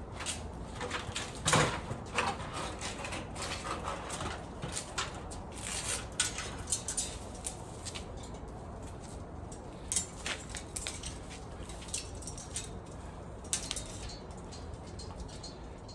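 Irregular clicks, snaps and rustling from hands working, with a louder knock about one and a half seconds in.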